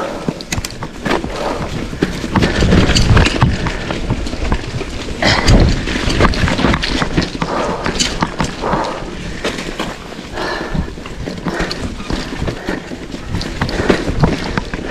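Mountain bike riding over a rough dirt trail: tyre noise with the bike rattling and knocking over bumps, and wind buffeting the microphone, heaviest about two and five seconds in.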